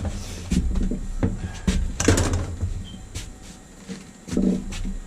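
Clicks and knocks of PEX pipe, fittings and a press tool being handled, with a louder scraping rattle about two seconds in.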